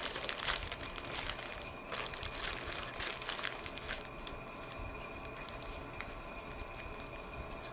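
Wrapper crinkling close to the microphone: a run of crackly rustles over the first few seconds, thinning out to a few scattered crackles after that.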